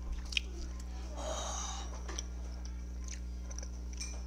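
A boy's short, wheezy breath about a second in, over a steady low hum, as he breathes through the burn of spicy shrimp in his mouth.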